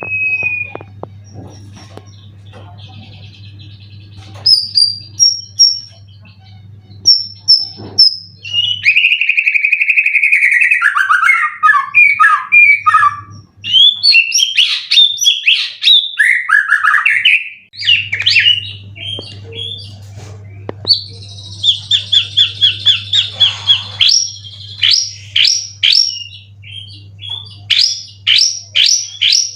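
White-rumped shama (murai batu) singing a loud, varied song: clear whistles, falling trills and bursts of rapid repeated notes, most intense through the middle and again near the end. A steady low hum runs underneath, stopping for several seconds in the middle.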